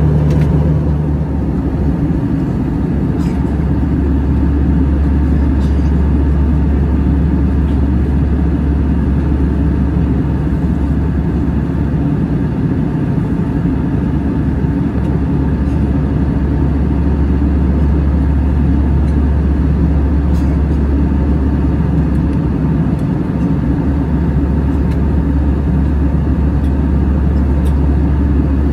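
Steady in-flight cabin noise of an Airbus A321, heard beside its CFM56 turbofan engine: a low, even hum with a rush of airflow over it. A low tone in the hum drops out about a second in.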